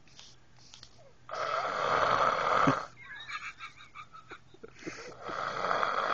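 A sleeping woman snoring: two long, loud snores, each about a second and a half, the first starting about a second in and the second about three and a half seconds later.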